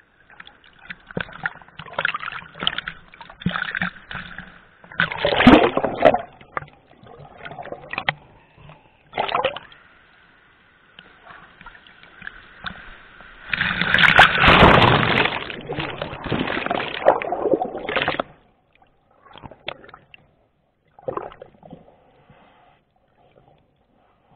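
Water splashing and sloshing in irregular bursts, loudest about five seconds in and in a long stretch from about fourteen to eighteen seconds, then a few smaller splashes.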